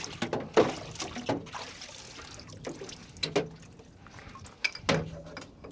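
Shock absorbers being dipped in a parts washer's fluid: liquid splashing and dripping, with several sharp knocks as the shocks are handled in the tank.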